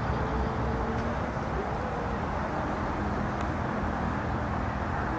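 Steady rumble of road traffic, with faint engine tones drifting in pitch.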